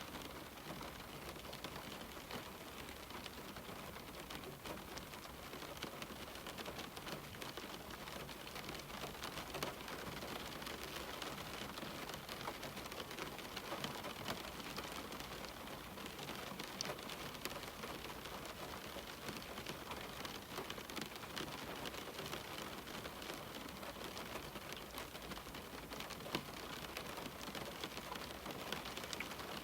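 Steady rain falling on a window, a constant patter with many small drop ticks and no pauses.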